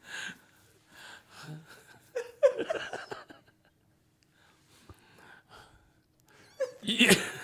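Several men laughing in short, breathy gasps that die down in the middle, with louder voices coming back near the end.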